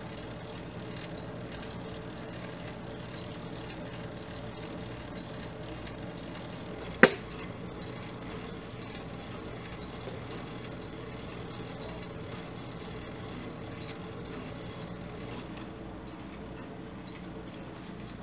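The animated steam-engine mechanism of an antique industrial clock running with a faint, steady whir, with one sharp click about seven seconds in.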